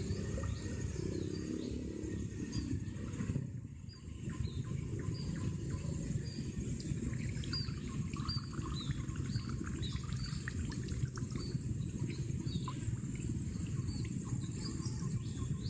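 A bird calling with short, high, downward-sliding chirps repeated about twice a second, over a steady low outdoor rumble.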